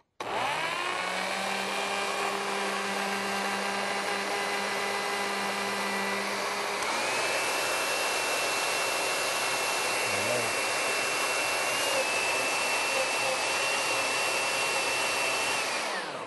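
Countertop blender motor switched on at low speed, blending chunks of cucumber and silken tofu with lemon juice into a thick dressing. It whines up to speed, runs steadily, steps up in pitch about seven seconds in, then winds down as it is switched off near the end.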